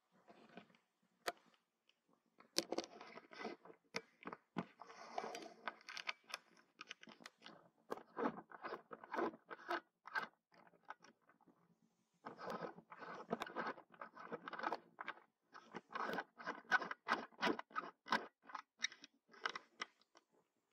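Baby monkey feeding noisily close to the microphone: quick runs of wet smacking and sucking clicks, with a short pause about halfway through.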